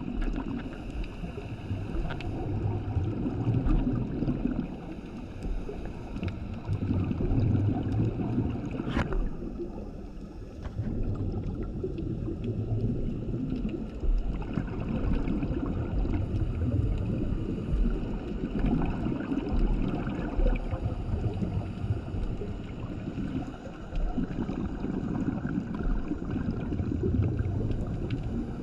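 A scuba diver breathing through a regulator underwater: a regular cycle of bubbly, rumbling exhalation bursts every few seconds, with one sharp click about nine seconds in.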